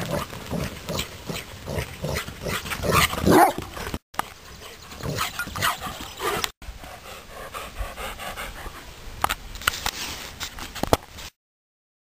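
Bernese mountain dog panting hard in quick, irregular breaths while running about. It stops abruptly about eleven seconds in.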